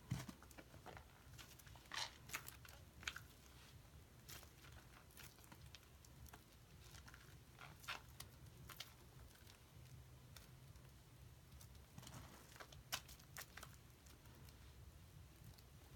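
Hands rubbing and squeezing a lump of Play-Doh soap in thick foamy lather: faint wet squishes and scattered crackling of the foam bubbles, with a few louder squelches.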